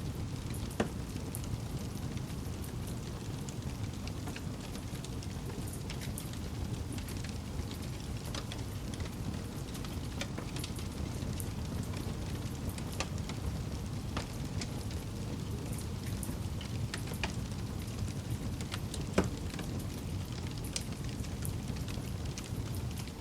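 Wood campfire burning: a steady low rush of flames with scattered crackles and pops. Two pops stand out, one about a second in and a louder one late on.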